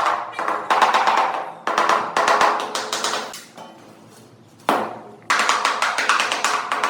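Rapid runs of tapping on ceramic tile in bursts about a second long, separated by short pauses, with a quieter stretch about four seconds in.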